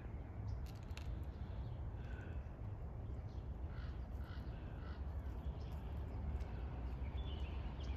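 A few short, faint bird calls over a steady low outdoor rumble.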